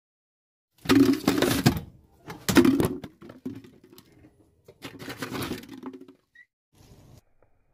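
Hollow plastic jack-o'-lantern crackling and scraping in three loud bursts of about a second each, with a faint fourth near the end.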